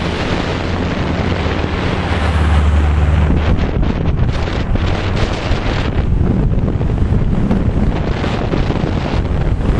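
Heavy wind buffeting the microphone at speed during a fast downhill run on a winding road, over a low steady rumble of wheels on asphalt.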